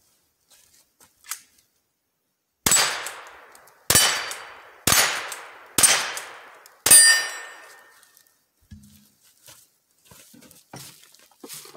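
Five gunshots about a second apart at steel targets, each hit followed by the ringing clang of the steel plate, the last ringing longest; a few faint clicks follow.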